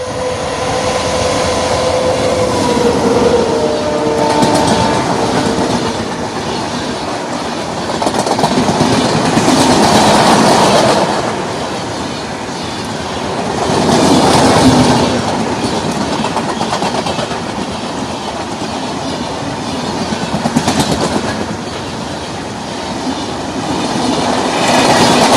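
Express passenger train passing at full speed. The locomotive horn sounds at first and fades out within about six seconds, then the coaches rush past with wheels clattering over the rail joints, the loudness swelling and ebbing every few seconds.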